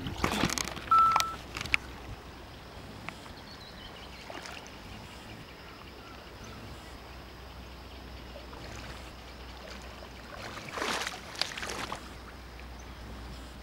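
Rustling and water splashing from someone moving through flooded grass and shallow water, loudest at the start and again for about a second near the end, with one short high beep about a second in. Between these, a steady low background noise.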